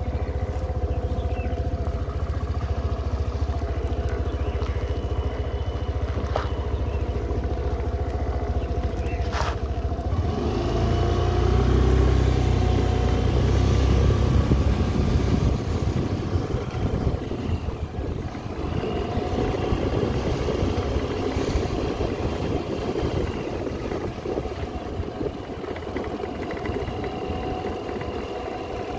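Suzuki Avenis 125 scooter's single-cylinder engine running at low speed while riding over a rough dirt track. A low rumble swells from about ten seconds in and eases after fifteen, with two short knocks earlier on.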